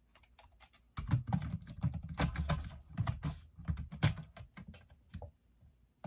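Dense clicks, taps and rattles of a plastic L-series ceiling speaker strobe being handled and fitted up against its ceiling mounting bracket, starting about a second in and thinning out near the end.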